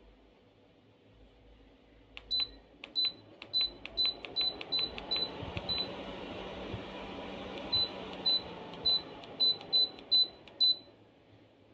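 DR.PREPARE tower fan's control panel beeping at button presses: a run of short identical high beeps, about two a second, pausing briefly midway. Under the beeps the fan's airflow swells up and then dies away near the end.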